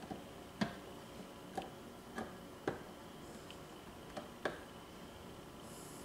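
A wall toggle switch flipped back and forth, giving several sharp, unevenly spaced clicks.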